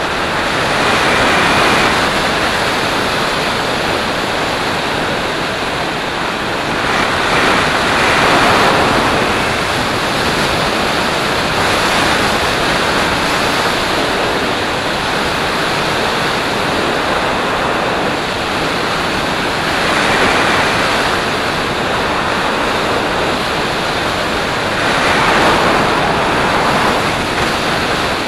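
Airflow rushing over the microphone of a camera mounted on a hang glider in flight: a loud, steady rush of wind that swells louder several times.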